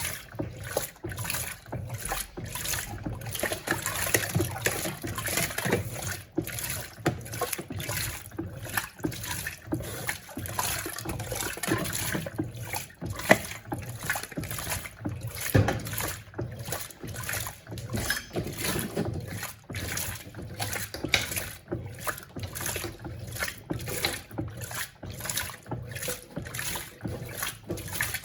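Electrolux Turbo Compacta LTC07 washing machine agitating its load, water sloshing and churning in the tub in a steady, rapid pulsing rhythm.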